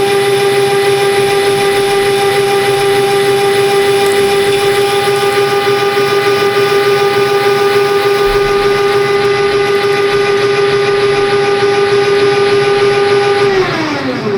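Electric motor of a workshop machine running with a steady whine, then switched off about a second before the end, its pitch falling as it spins down.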